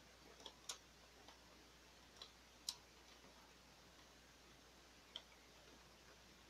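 Small sharp clicks and taps of plastic parts being handled and fitted into the Canon MG3510 printer's mechanism over near silence. Most come in the first three seconds, with one more about five seconds in.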